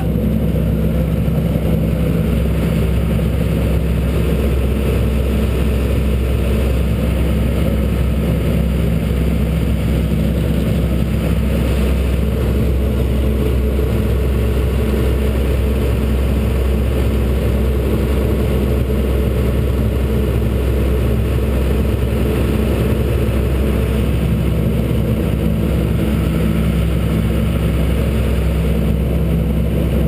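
An engine running at a steady speed: a constant low hum that neither rises nor falls, with a wash of noise over it.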